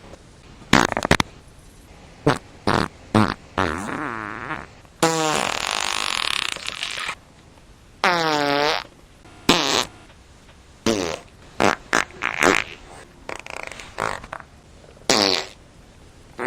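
A string of fart sound effects, one after another with short gaps: quick short pops, longer drawn-out sputtering ones, and a pitched one about eight seconds in whose tone dips and comes back up.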